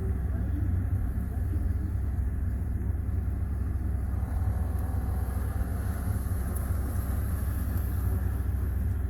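Steady low rumble of a vehicle in motion, even and unbroken.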